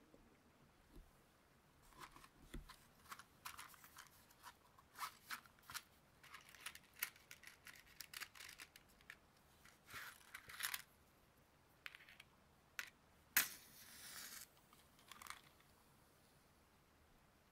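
A run of short, crisp rustles and scrapes of something being handled close to the microphone, coming in irregular clusters, with a louder, longer tearing rustle about thirteen seconds in.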